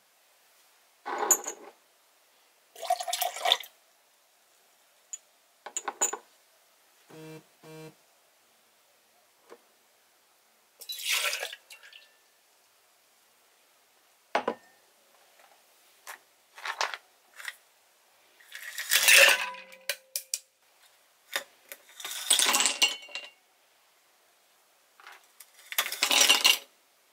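A run of separate clinks and clatters as glassware and a stainless steel cocktail shaker tin are handled and set down on a wooden counter. In the second half, ice cubes are scooped and tipped into a stemmed glass in longer clattering rattles, the last one near the end.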